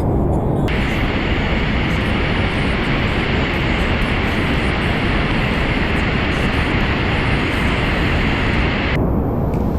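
Steady, loud rush of fast-flowing water in a canyon river. It starts abruptly just under a second in and cuts off near the end.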